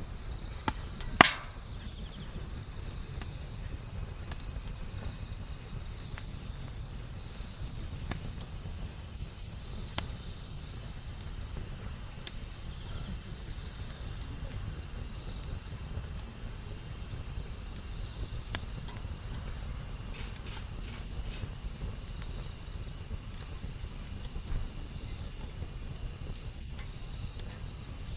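Wood fire crackling with scattered sharp pops, the loudest about a second in, over a steady high-pitched chorus of insects.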